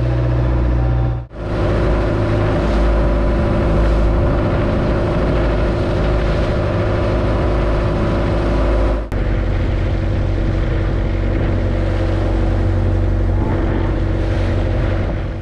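Wooden fishing boat's engine running steadily under way, with wind and water rushing past the hull. The sound dips briefly about a second in and again about nine seconds in.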